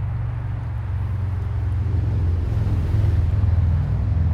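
A motor vehicle's engine running close by, a steady low hum that grows louder about two seconds in.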